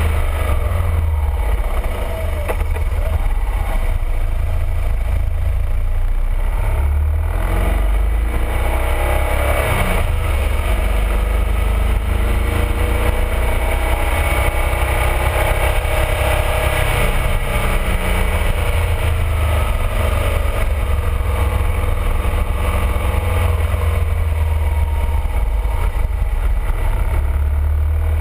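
BMW R1200RT motorcycle's flat-twin boxer engine running under way, its pitch rising and falling with throttle and gear changes through the bends. Heavy wind rumble on the microphone runs underneath it.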